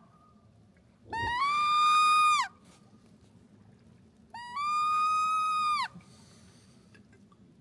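Wood duck call blown by a hunter: two long squealing whistle notes, each scooping up in pitch, holding steady for about a second and a half, then dropping off. A soft low thump comes just as the first begins.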